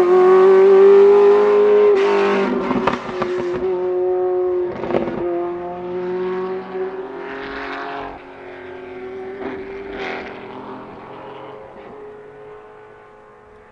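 Porsche 908/3's air-cooled 3.0-litre flat-eight racing engine held at high revs with a nearly steady pitch, fading away into the distance. A few sharp cracks sound over it.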